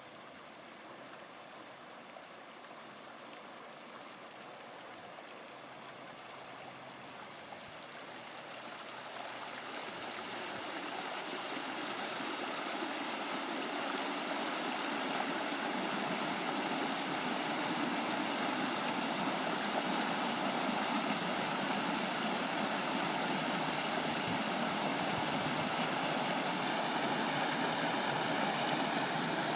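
Flash-flood water rushing down a normally dry desert creek bed, the sound growing louder over the first half as the flood front arrives and more water flows, then holding steady at a loud rush.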